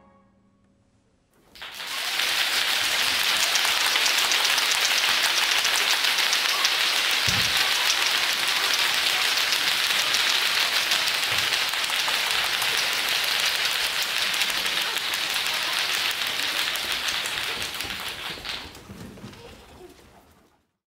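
Audience applauding. It breaks out about a second and a half in, once the last notes of the brass band have died away, holds steady, and fades out near the end.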